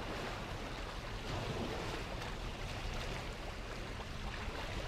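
Steady rush of wind and water heard from aboard a moving boat, with a low rumble underneath.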